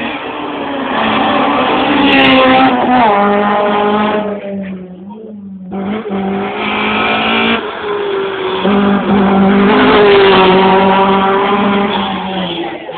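Rally cars at speed on a stage, engines at high revs and shifting pitch with gear changes. The sound breaks off abruptly about five seconds in, then another loud stretch of engine noise follows.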